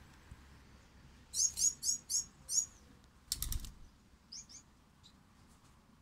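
Gouldian finches chirping: a quick run of about six short, high chirps a second or so in, a brief rustling thump just after halfway, then two fainter chirps.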